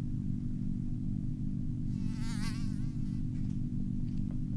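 A steady, low buzzing hum that does not change, with a brief warbling high-pitched squeal about two seconds in.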